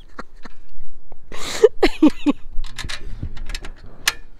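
Bolts and a metal chimney support bracket clicking and clinking as they are handled and fitted against a wooden post, with a run of sharp clicks in the second half. About a second and a half in there is a short breathy burst and a brief bit of voice, like a laugh.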